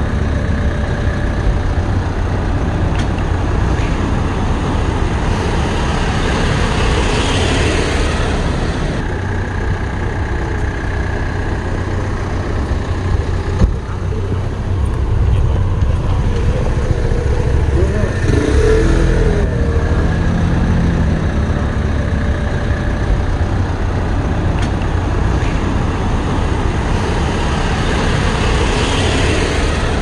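Street ambience: cars pass now and then over a steady low rumble of traffic.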